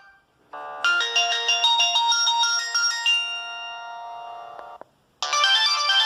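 Samsung GT-E2121L mobile phone's speaker playing its built-in ringtones in turn: a short electronic melody of quick notes that settles into held, fading notes and is cut off near five seconds in. After a brief gap the next ringtone starts, louder.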